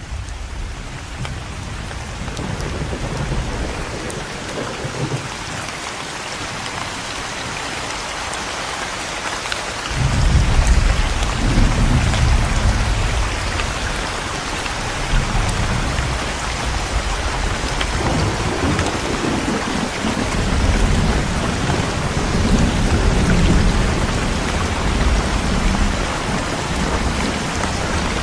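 Heavy rain pouring steadily, with thunder rumbling low and long; a loud roll of thunder comes in suddenly about ten seconds in, and more rumbling follows later.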